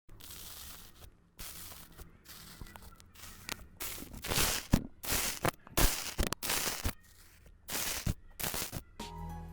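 Slime being squeezed and pressed by hand: an irregular string of short wet squishing and crackling sounds, growing louder and closer together about halfway through.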